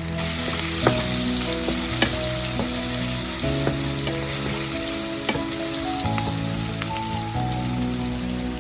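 Diced onions with turmeric sizzling in hot coconut oil in a pan, with a few sharp clicks of a utensil stirring against the pan. Background music plays underneath.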